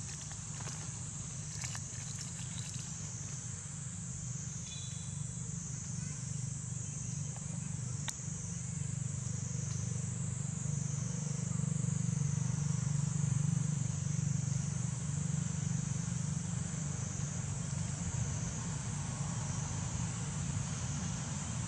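Steady high-pitched insect chorus, the drone wavering slowly in strength, over a low steady rumble that grows louder about halfway through. A few faint clicks come in the first seconds.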